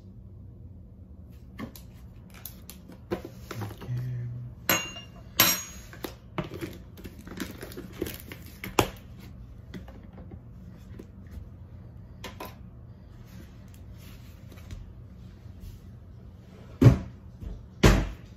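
Clinks and knocks of cups, utensils and cupboards being handled at a kitchen counter while coffee is made, scattered through the first half, with two loud knocks near the end.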